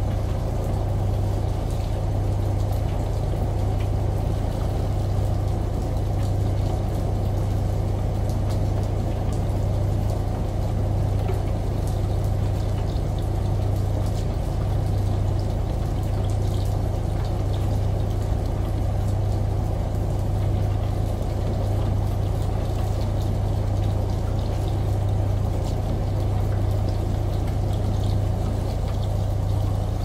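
Front-loading washing machine tumbling a load of laundry in its wash cycle: a steady low motor hum with water sloshing and trickling as the drum turns.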